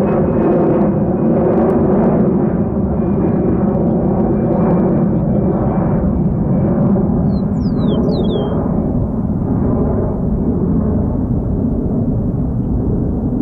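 Jet airliner engines rumbling loudly as the aircraft passes, with a faint high whine that slowly falls in pitch; the rumble starts to fade near the end. A bird chirps briefly about eight seconds in.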